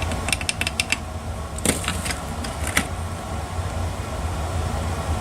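Small, sharp metal clicks and taps from tools and engine parts being handled while outboard connecting-rod caps are worked into alignment. A quick run of about six comes in the first second, then a few louder single taps, over a steady low hum.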